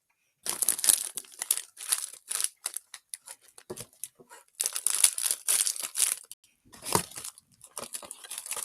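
Plastic snack packaging crinkling in irregular bursts as it is handled and opened, starting about half a second in.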